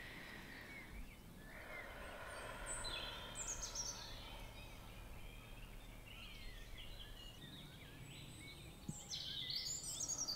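Faint birdsong, many short chirps and quick falling notes from several birds, over a soft steady background hiss. A louder cluster of chirps comes near the end.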